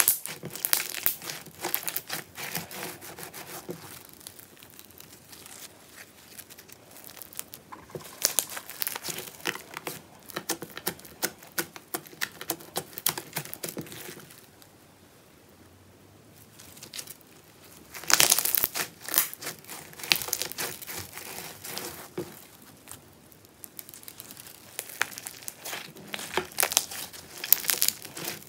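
Clear glue slime loaded with fishbowl beads being pressed and kneaded by hand, the beads crackling and crunching in dense runs of clicks. There is a quieter pause about halfway through, then a loud run of crackling.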